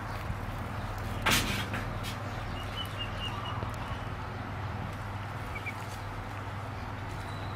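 Ducklings peeping faintly, a quick run of short high peeps about three seconds in and two more near the end, over a steady background hum. A brief scuffling rustle sounds about a second in.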